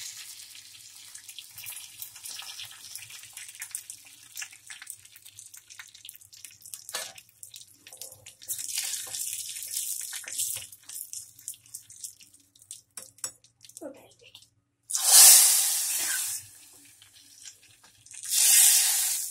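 Mustard seeds, dried red chillies and curry leaves sizzling in hot oil in a small tempering pan, a crackling hiss scattered with small pops. Two much louder surges of sizzle come about fifteen seconds in and again near the end, as the hot tempering meets the curry.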